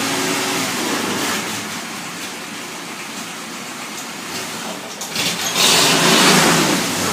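1944 Willys MB jeep's four-cylinder flathead engine running steadily just after being started on a newly fitted push-button starter and solenoid; it gets louder about five seconds in.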